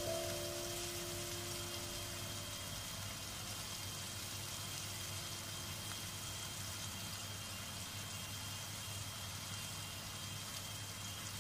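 Onions sizzling in oil in a pot on a gas burner, a steady hiss. Background music fades out over the first few seconds.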